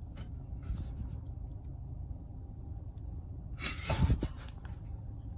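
Steady low rumble of a car's cabin, with a short breathy burst of noise about three and a half seconds in.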